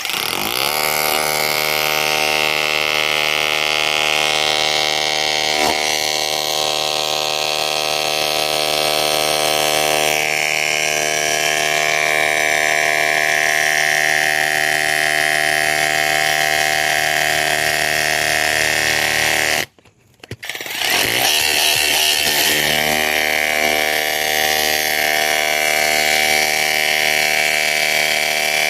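Cordless brushless SDS-Plus rotary hammer hammer-drilling into solid stone, running steadily at full load. It stops briefly about 20 seconds in, then starts again.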